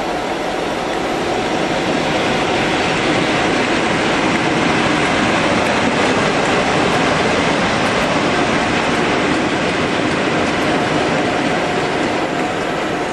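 Class 47 diesel locomotive in Colas Rail livery, running light engine through the station with its Sulzer V12 engine and its wheels on the rails. It grows to its loudest around the middle as it passes, then eases off as it runs away.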